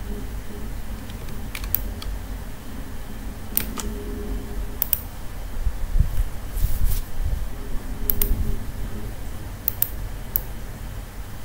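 Computer mouse and keyboard clicks: about a dozen scattered sharp clicks, several in quick pairs, over a low steady background hum.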